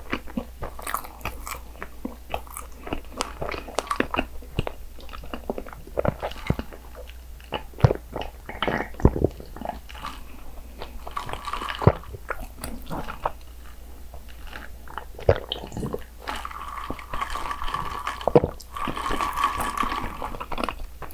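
Iced coffee being drunk from a glass mug close to the microphone: sips and swallows, with many short clicks of ice cubes and glass.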